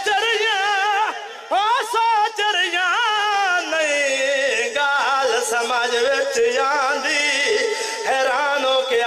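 A man's voice chanting a lament in long, melismatic sung phrases with a wavering pitch, amplified through a microphone, with a brief break about a second and a half in.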